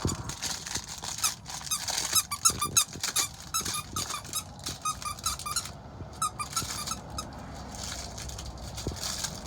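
A squeaky dog toy squeaking in quick runs of short squeaks as a puppy bites and shakes it, with light clicking scuffles; the squeaks thin out in the last couple of seconds.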